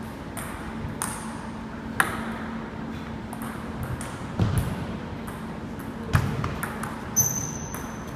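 Table tennis balls clicking off paddles and bouncing on tables in an irregular rally rhythm, with a steady low hum underneath and a short high squeak near the end.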